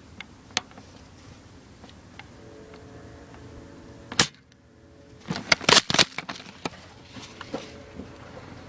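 Airsoft guns firing: a single sharp crack about four seconds in, then a quick cluster of loud cracks and clacks over the next two seconds, with a few fainter clicks after.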